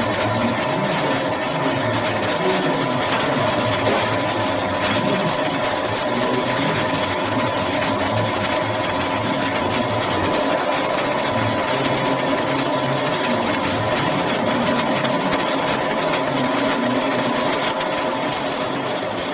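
Grinding machine running steadily while grinding metal inspection mandrels: a continuous machine hum with steady tones over an even hiss.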